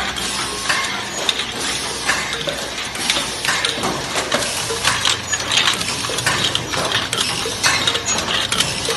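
A JGF-C-502 automatic rotary tube-filling machine running, with a continuous dense clatter of metal clicks and clinks from its turntable and tube-feed mechanism. It is running at about fifty tubes a minute.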